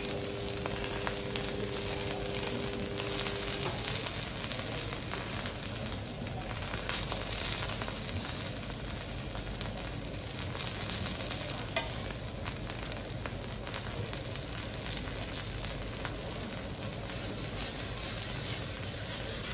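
Food sizzling steadily on a teppanyaki iron griddle, with one sharp tap about twelve seconds in.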